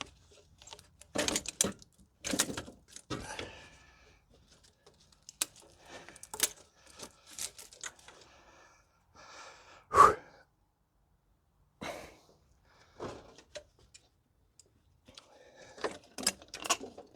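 Scattered knocks, clicks and rattles of metal parts as the stock intake manifold is worked loose from a Subaru engine, with one louder knock about ten seconds in.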